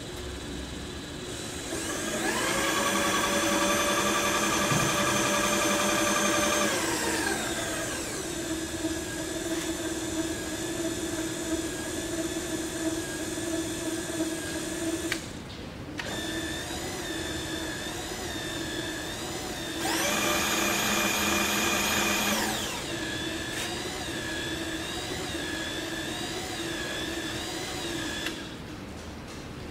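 Power feed motor on a Supermax YC-1-1/2VS milling machine, driving the table with a steady electric whine. The whine climbs in pitch about two seconds in as the feed speeds up to rapid traverse, then drops back around seven seconds. The feed stops briefly about halfway, starts again, rapids a second time around twenty seconds in, and stops near the end.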